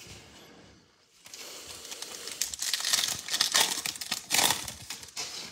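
Foil wrapper of a Prizm Draft Picks basketball card pack being torn open and crinkled: a crackling rustle that starts about a second in and grows louder toward the end.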